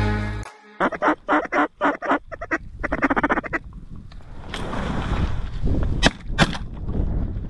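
Mallard-style quacking: a series of loud, evenly spaced quacks, then a fast run of rapid quacks. Two sharp cracks come about six seconds in.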